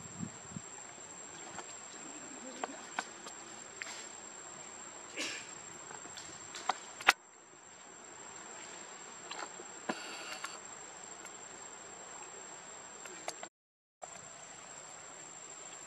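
Insects droning in a steady high-pitched whine, with scattered small clicks and ticks; one sharp click about seven seconds in, and the sound cuts out briefly near the end.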